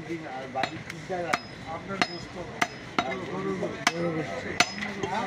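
Heavy butcher's cleaver chopping beef on a wooden log chopping block, a steady run of sharp chops about every two-thirds of a second.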